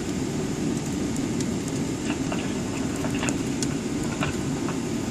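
Steady low rumble of an airliner cabin as the plane rolls on the ground after landing: engines and cabin air running, with a few faint clicks.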